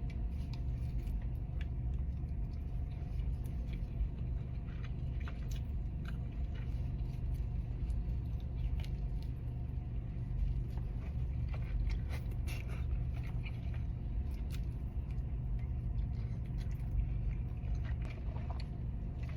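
A person chewing food, with scattered small mouth clicks and bites, over a steady low rumble.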